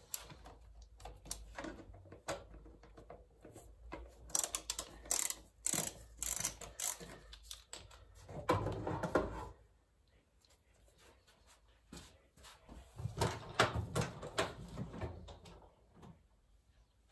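Metal hand tools and engine parts clicking and clattering while an engine's top end is being dismantled. The sound comes in irregular runs of clicks and knocks, with a louder clatter about halfway through, a short pause, then more clicking.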